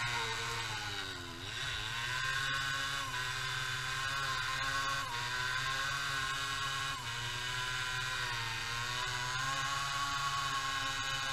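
Small moped engine held at high revs through a burnout, with the rear tyre spinning in place. The revs dip and climb back about a second and a half in, then hold high with small wavers.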